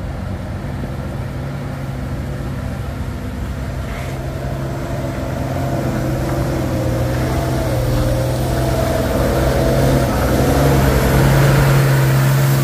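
Coach bus engine pulling up a muddy incline with a steady low note, growing louder as the bus approaches and passes close by near the end.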